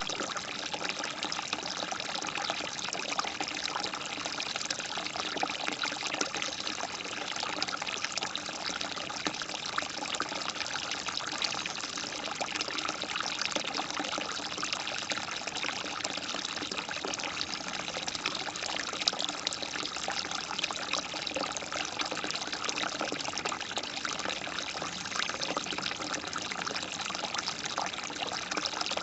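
Natural flowing water trickling and splashing steadily and unbroken, with many small splashes.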